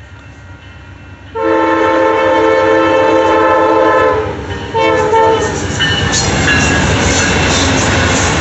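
Amtrak passenger train's GE Genesis diesel locomotive sounding its horn as it nears a grade crossing: one long blast of about three seconds, then a short one. The diesel locomotives then run past close by, with loud wheel and rail noise.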